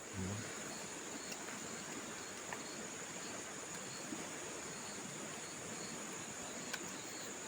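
Insects trilling, a steady high continuous buzz over faint outdoor hiss, with a few faint ticks.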